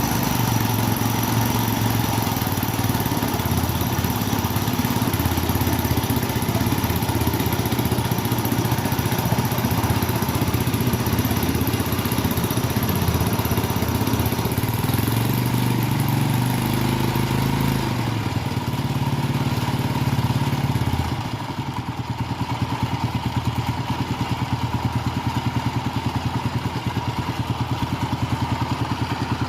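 Suzuki Spin 125 single-cylinder four-stroke scooter engine, converted into a boat outboard motor, running steadily; about 21 seconds in its sound drops and grows quieter, then runs on evenly.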